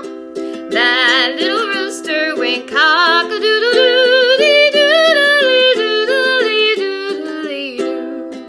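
A woman singing a children's folk song, the rooster's 'cock-a-doodle-doo, dee doodle-dee' refrain, over steadily strummed ukulele chords.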